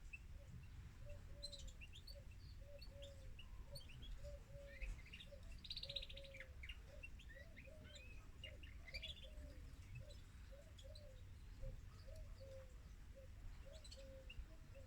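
Female canary singing in the manner of a male: a run of quick chirps and short trills, with a fast buzzy trill about six seconds in, thinning to scattered chirps after about ten seconds. A faint low note repeats a couple of times a second throughout.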